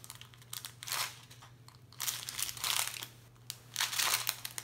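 Small clear plastic bags of diamond painting drills crinkling in the hands, in a few short bursts.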